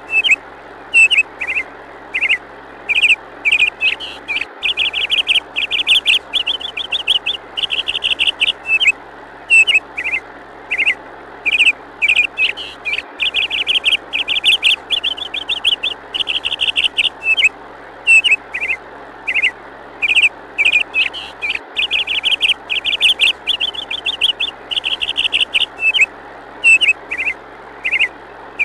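Birds chirping and trilling in quick repeated bursts, a new phrase every second or so with short gaps between.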